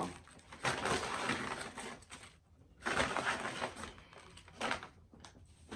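Paper fast-food bag and wrappers rustling and crinkling as they are handled, in a few separate stretches with a short pause about halfway through.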